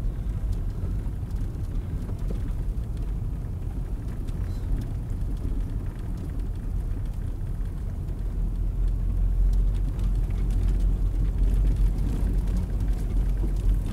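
Steady low rumble of a car driving on a snow-covered road, heard from inside the cabin; it grows louder about eight seconds in.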